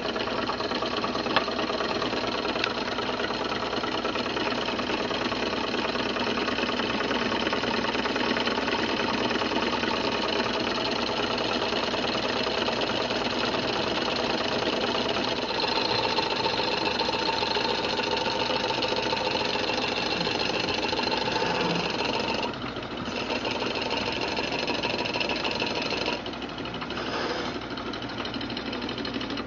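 Small model Stirling hot-air engines running steadily on their spirit burners, a continuous mechanical running sound of the little pistons, linkages and flywheels. The sound dips briefly twice near the end.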